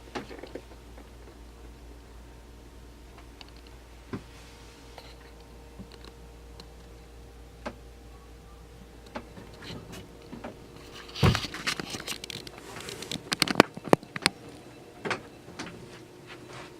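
Scattered clicks and knocks of someone moving through a boat's cabin, a cluster of louder knocks about two-thirds of the way through, over a steady low hum that stops near the end.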